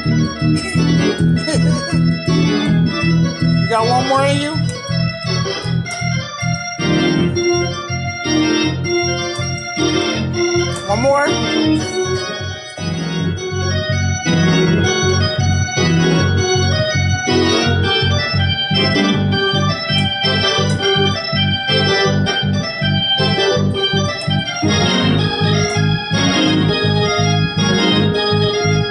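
Hammond-style two-manual organ played live: fast, rhythmic chord stabs over sustained low notes, with quick rising glissando sweeps up the keys twice in the first half.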